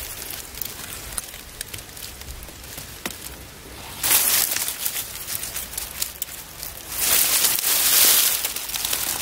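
Dry grass and dead leaves rustling and crackling as a gloved hand brushes through undergrowth close to the microphone, louder about four seconds in and again for a couple of seconds near the end.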